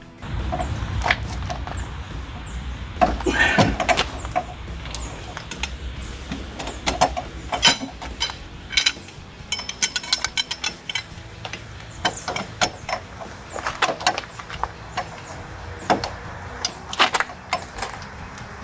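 Irregular metallic clicks and clinks from a socket wrench with a steel pipe slipped over its handle as a breaker bar, worked back and forth on a rust-seized tailgate hinge bolt. A low rumble runs under the first few seconds.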